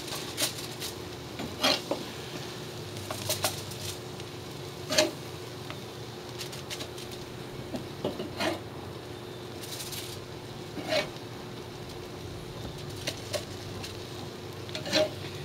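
Metal grill tongs clicking and scraping against a cast iron grill grate as patties are lifted off, a scattered series of sharp clicks a second or more apart. A steady low hiss from the charcoal grill runs underneath.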